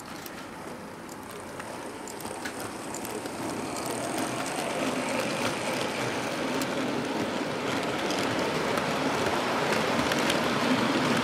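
HO-gauge model freight train rolling past on its track: a steady rumble of many small metal wheels on rail with faint ticks, growing louder as the wagons pass close.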